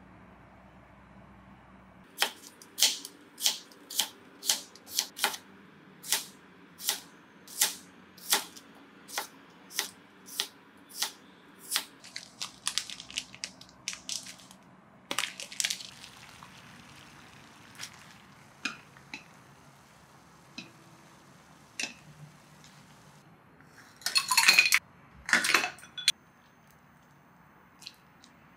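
Chef's knife slicing onion on a plastic cutting board: a run of sharp, evenly spaced chops, about one and a half a second, that quicken after about ten seconds. Scattered knocks of kitchen utensils follow, with a loud clattering burst lasting about two seconds near the end.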